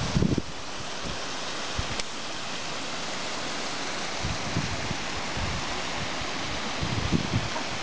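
Water spilling down a stone retaining wall, a steady rushing hiss, with low buffets of wind on the microphone now and then.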